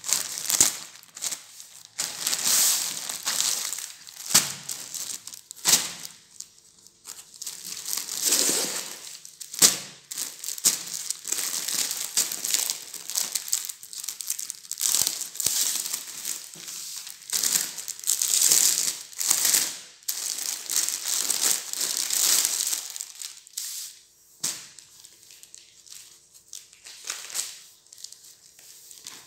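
Plastic packaging crinkling and rustling as a courier mailer bag and a saree's clear plastic wrapping are handled and opened, in repeated bouts with a few sharp clicks. It quietens in the last few seconds.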